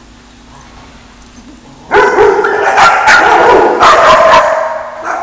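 Dogs barking and yipping in play, a loud run of barks starting about two seconds in and lasting about two and a half seconds before it fades.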